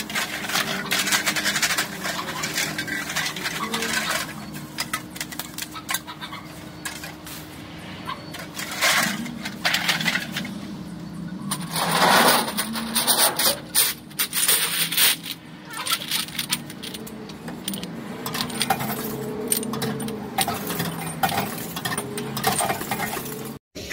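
Envipco reverse vending machine taking in returned containers: an irregular run of clinks, knocks and rattles. A steady low machine hum runs underneath.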